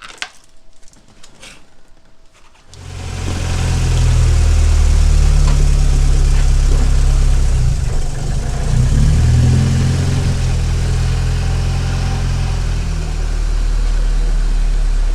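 Honda Civic engine running steadily with a low drone, starting abruptly about three seconds in after a few faint clicks.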